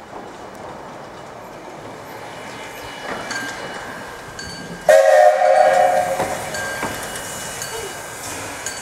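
Steam whistle of the Cockerill 503 steam tram engine, blown once in a sharp blast of just over a second about five seconds in. Around it, the faint running noise of the locomotive moving along the yard tracks, with a few light clicks.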